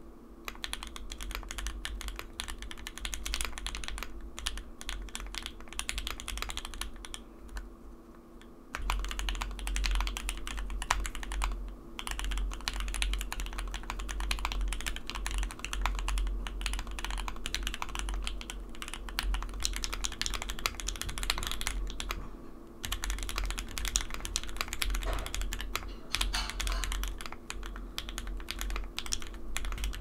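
Continuous fast typing on a foam-dampened 65% custom mechanical keyboard (Think6.5 v2, FR4 plate, JWK Dogikon switches lubed with Krytox 205g0), giving a steady stream of key clacks. The keycaps are swapped partway through, from GMK double-shot ABS to HK Gaming Milkshake PBT and then EPBT ABS.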